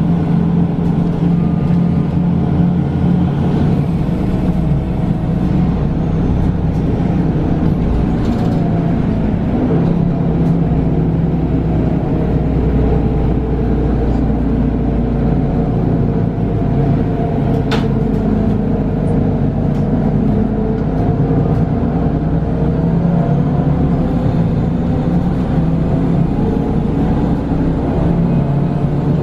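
Mercedes-Benz Citaro G articulated bus under way, heard from inside the passenger cabin: its compressed-natural-gas engine and ZF six-speed automatic gearbox run with a steady low drone, the pitch falling and rising again a couple of times as speed changes. A single sharp click about 18 seconds in.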